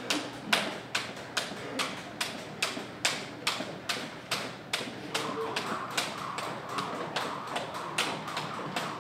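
Jump rope skipping on a wooden gym floor: a steady rhythm of sharp slaps, a little over two a second.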